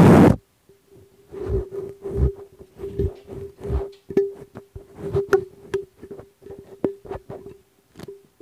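Handling noise from a BM800 condenser microphone as its foam windscreen is rubbed and worked over the grille: irregular scraping and rubbing with low thumps and sharp clicks, over a faint steady tone.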